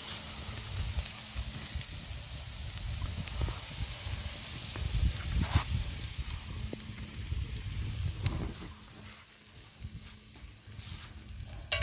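Sliced green peppers and onion sizzling in a cast iron skillet over an open wood fire, steady throughout, with a sharp tap near the end.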